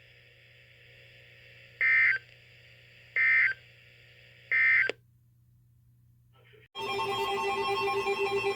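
Three short, loud bursts of warbling SAME digital data from NOAA Weather Radio, about a second and a half apart: the end-of-message code that closes the severe thunderstorm warning. After a brief hush, a steady sound made of several held tones with a pulsing low tone starts near the end.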